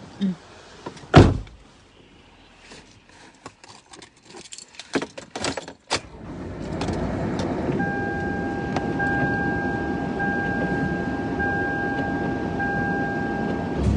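Handling sounds in a car: scattered clicks and keys jangling, with a loud knock about a second in. From about halfway a steady rushing noise of the car running comes up, joined shortly after by a steady electronic warning tone.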